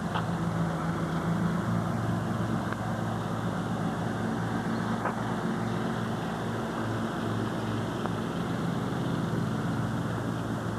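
Steady low machine hum under an even hiss, with a faint click just after the start and another about five seconds in.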